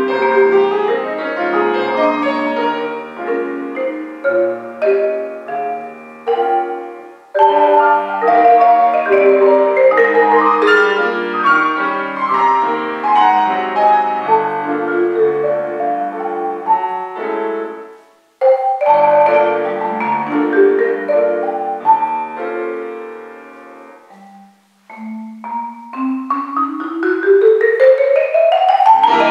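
Concert marimba played with mallets in fast, dense runs of notes, breaking off briefly a few times. Near the end a rapid run climbs steadily upward in pitch.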